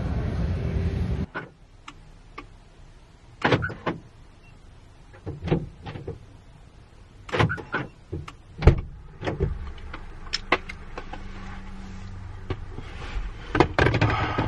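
A steady noise cuts off about a second in. It gives way to scattered knocks, clicks and rustles of someone getting into a pickup truck's cab and handling things, the sharpest knock a little past the middle.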